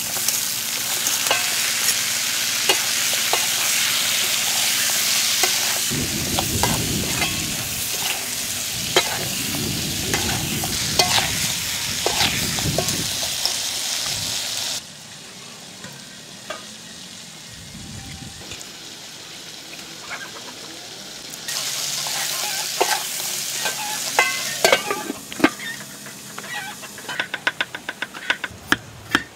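River prawns sizzling hard in a hot wok while a metal spatula stirs and scrapes them. The sizzle drops away about halfway through and returns loudly for a few seconds. Near the end a knife chops rapidly and evenly through a carrot on a wooden chopping block.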